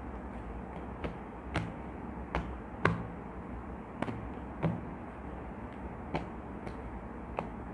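Tarot cards being handled and laid down on a surface: about ten light, irregular taps and clicks over a steady background hiss.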